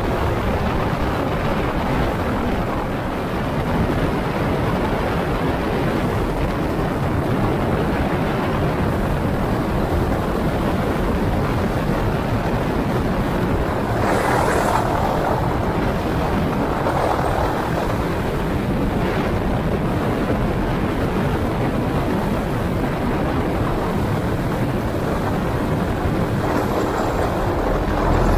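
MD 500D helicopter running steadily, a constant rush of rotor and turbine noise with a low steady hum beneath it.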